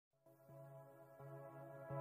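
Background music fading in from silence: sustained chords with a soft beat about every 0.7 seconds.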